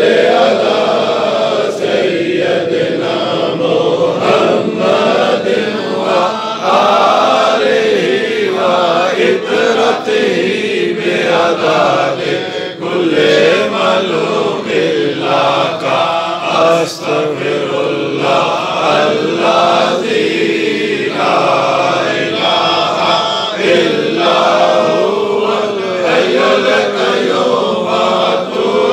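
A large group of men chanting together in a continuous melodic line.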